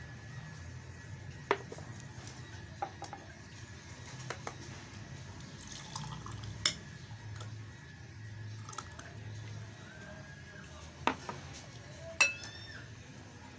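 Milk soda being scooped from a glass bowl and poured into drinking glasses: liquid sloshes and trickles, with a glass and a ladle clinking against the glassware. Four sharp clinks stand out, the loudest near the end with a brief ring.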